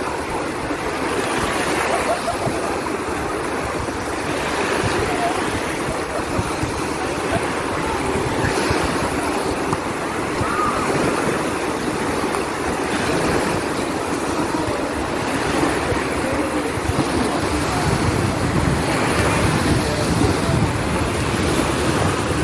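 Small sea waves breaking and washing in at the shoreline: a steady surf wash that gently rises and falls, with faint voices of bathers behind it.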